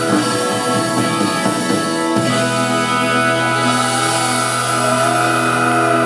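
Live rock band playing the closing bars of a song, settling about two seconds in onto a long held final chord.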